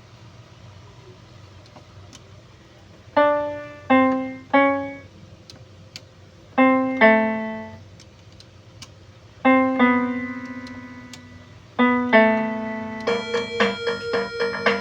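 KAWES foldable digital piano played in a piano tone. After a quiet start, short groups of notes are struck and left to die away, with pauses between them. Near the end a quicker run of evenly repeated notes begins, about three or four a second.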